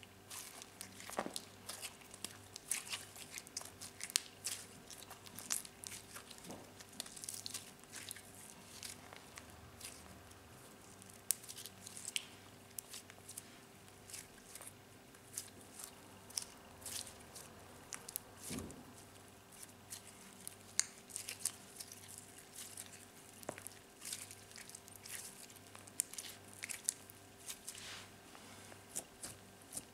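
Store-bought slime with crumbled old makeup mixed in, being kneaded, squeezed and pulled apart by hand: a constant irregular run of small sticky crackles, pops and squishes.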